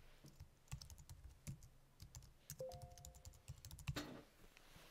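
Computer keyboard typing: a run of faint, quick keystrokes, with a louder cluster of keystrokes about four seconds in.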